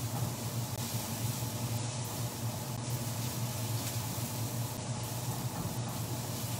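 Vegetables sizzling steadily in a hot frying pan as they are stirred, over a low steady hum.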